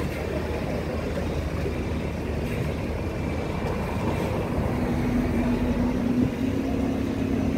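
Street ambience at a bus stand with a double-decker bus standing at the stop: a steady rumble of traffic and engine noise, joined about five seconds in by a steady low hum.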